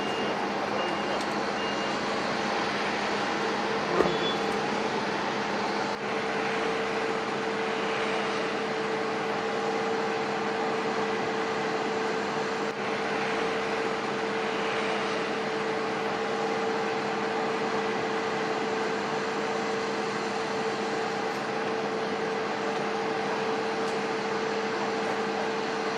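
Steady drone of running vehicle engines with a held hum. A short run of high beeps plays in the first two seconds, and there is a single knock about four seconds in.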